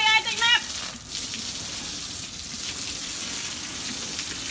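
Garden hose spraying water over a wet dog's coat and a wooden deck, a steady hiss. In the first half-second a short run of high, repeated chirping notes sounds over it.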